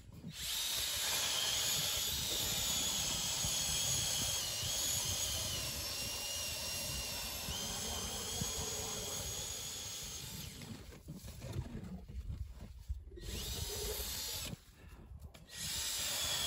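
Cordless drill turning an ice auger to bore a fishing hole through the ice. The motor runs with a steady whine that sags and recovers in pitch as the auger bites. Near the end it stops, starts in short bursts, and runs again.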